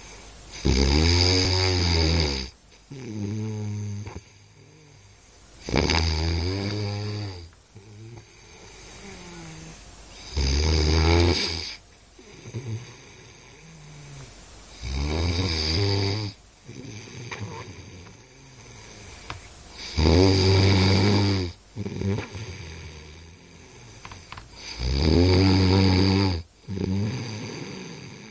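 A man snoring loudly: six long snores about five seconds apart, each followed by a shorter, softer breath sound.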